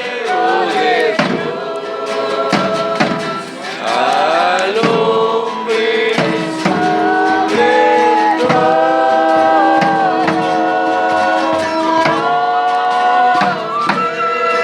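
Music with singing voices holding notes and sliding between them.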